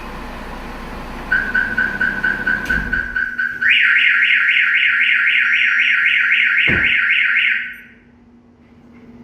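Audi RS3's remote-started five-cylinder engine idling and cutting off about three seconds in as the car alarm sounds. The alarm starts as a rapid beeping tone, then becomes a loud electronic siren warbling up and down about four times a second, which stops suddenly near the end, with a single thump partway through. The alarm was set off by the door handle being pulled during remote start, and the engine shut off on the alarm's kill switch.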